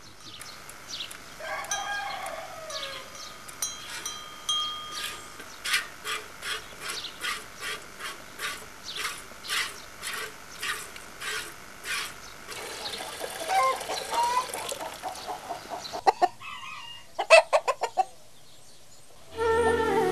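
A cow being milked by hand into a plastic bucket: milk squirts hit the bucket about twice a second for several seconds, in a steady rhythm. Poultry call in the farmyard before and after the squirts.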